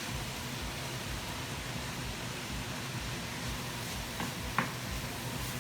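Steady sizzling of beef browning in butter with onions in a hot pot, with two light clicks about four seconds in.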